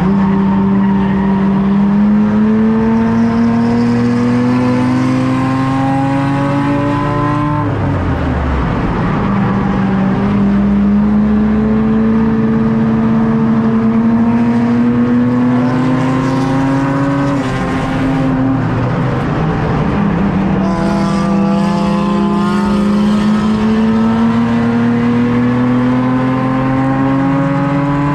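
Race car's engine heard from inside the car, pulling through the gears on each straight with its pitch climbing slowly for several seconds, then dropping sharply as the driver lifts for the turn. This happens three times.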